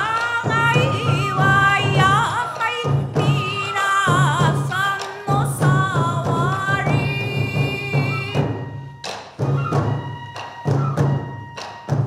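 Japanese folk-dance accompaniment: heavy drum beats under a wavering high melody. The drums drop out briefly about eight and a half seconds in, then come back.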